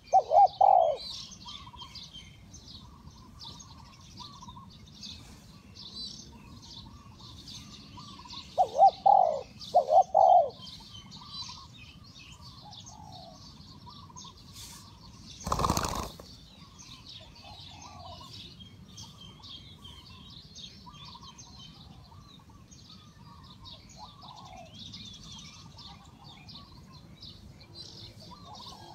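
Spotted dove cooing: one loud coo right at the start and a phrase of three coos about nine seconds in, over continual faint high chirping of small birds. A short noisy burst comes about halfway through.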